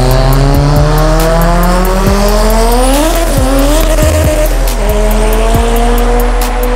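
Street cars accelerating hard side by side down a drag strip in a roll race. The engine pitch climbs steadily, drops sharply at an upshift about three seconds in, then climbs slowly again.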